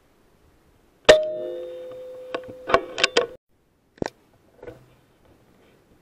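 An air rifle shot about a second in, a sharp crack followed by a metallic ring that fades over about two seconds, with several quick clicks over the ring. A single sharp click follows near four seconds, then a faint softer sound.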